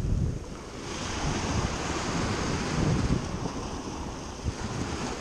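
Small waves breaking and washing up a sandy beach, with wind buffeting the microphone. The hiss of the wash swells about a second in and stays up.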